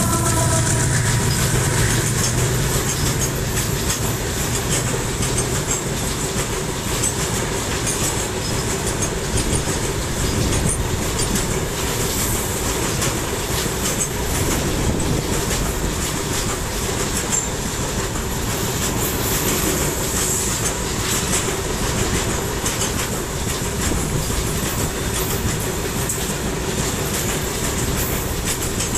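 Freight train of loaded open wagons rolling past close by: a steady rumble of steel wheels on rail with clicking over the rail joints and a thin, steady wheel squeal. The low drone of the diesel locomotive fades out over the first few seconds as it moves on.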